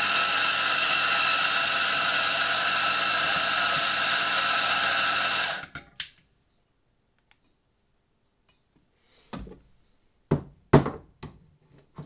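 Doser coffee grinder's motor running steadily for nearly six seconds, then cutting off. Several sharp clacks follow near the end as the portafilter is handled under the doser.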